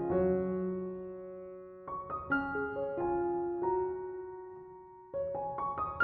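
Background piano music: a slow, gentle melody of notes that ring out and fade, with a held chord fading through the first two seconds.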